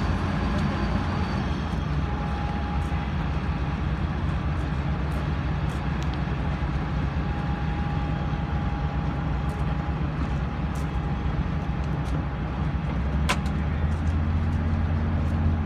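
Excavator's diesel engine running steadily, a low rumble that grows a little louder about thirteen seconds in, with one sharp click at about that time.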